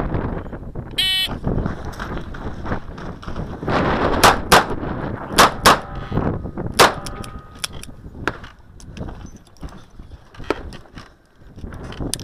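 Electronic shot-timer beep about a second in, then handgun shots: two quick pairs around four and five and a half seconds in, a single shot near seven seconds, and fainter sharp cracks after that.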